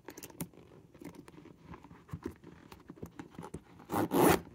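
Metal zipper on a new leather pen case being worked open in short catches, its teeth and pull clicking irregularly as it sticks and is hard to pull, then a quick rasping pull about four seconds in.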